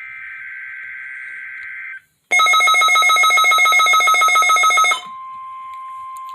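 NOAA Weather Radio alert signals for the weekly test. First comes a SAME digital header burst, a raspy two-tone data screech lasting about two seconds. After a brief gap a loud, rapidly pulsing electronic beep with a buzzy edge runs for nearly three seconds, and about five seconds in the steady 1050 Hz warning alarm tone begins.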